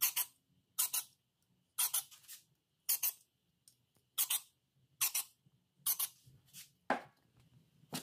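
Aerosol can of brake cleaner hissing in short blasts through its extension straw, about one a second, as it is sprayed into the engine block's head stud holes one after another.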